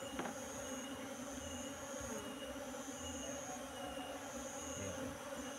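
A colony of Asian honeybees (Apis cerana) buzzing with a steady low hum while the bees are scooped from cardboard into a wooden hive box. A high chirp repeats about once a second behind the hum.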